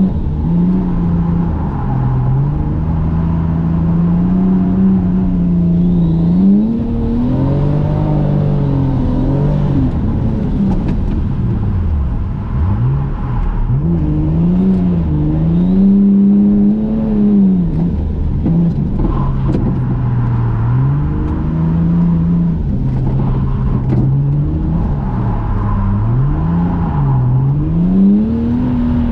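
Toyota JZX100 Mark II's straight-six engine heard from inside the cabin, revs rising and falling over and over as the car is drifted on a wet track. The revs drop deeply about twelve seconds in before climbing again.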